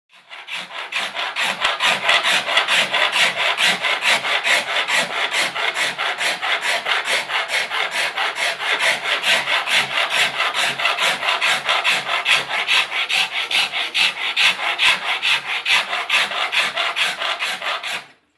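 Hand rasp shaping the wooden stock of a flintlock long rifle, in quick even scraping strokes of about four a second. It fades in at the start and stops abruptly near the end.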